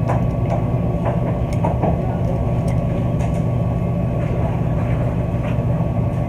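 A steady low mechanical hum with a faint high steady tone above it, and a few light clicks and taps in the first few seconds.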